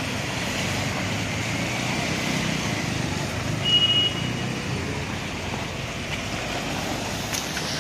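Scooters, motorbikes and cars driving through flooded road water: steady engine hum and tyres swishing through the water. One short, high horn beep a little past halfway.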